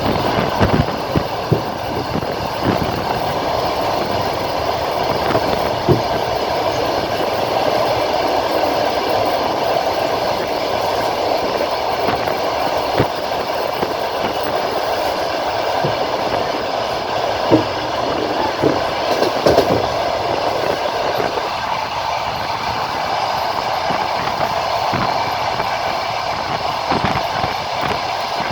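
A moving passenger train heard from inside the carriage: a steady rolling rumble with the wheels knocking irregularly over rail joints.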